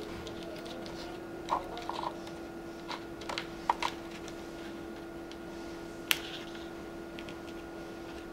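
Small resin model parts on their casting blocks clicking and tapping as they are picked up and set down on a cutting mat, with a sharper click about six seconds in, over a steady low hum.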